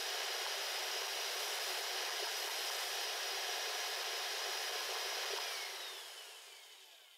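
Quiet Cut DC spindle on a Shapeoko CNC router running at maximum speed with a steady high hiss. About five and a half seconds in it is switched off and winds down, fading with falling pitch.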